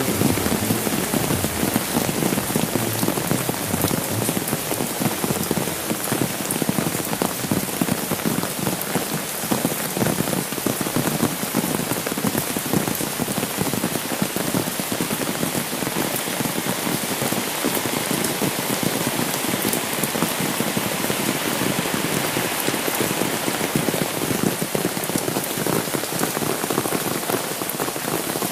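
Steady rain, a dense even patter of drops on an umbrella held overhead and on the wet road.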